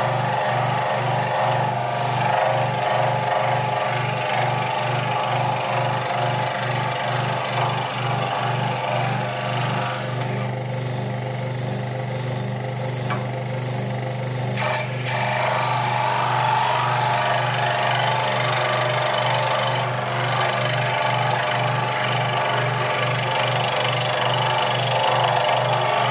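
Scroll saw running, its reciprocating blade cutting through a thin piece of wood with a fast, even chatter. The higher cutting noise drops away for a few seconds in the middle while the saw keeps running.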